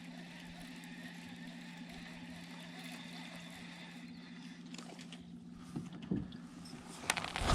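A steady low motor hum, with a couple of knocks about six seconds in and a quick run of sharp clicks and knocks near the end.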